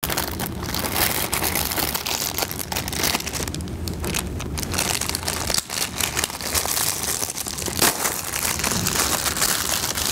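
Plastic bags crinkling and rustling as habanero peppers are taken out of a clear plastic bag and a plastic grocery bag is handled, over a steady low hum.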